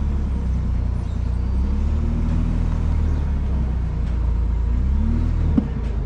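Ford Bronco engine running at crawling speed off-road, its revs gently rising and falling. A single sharp thump comes near the end.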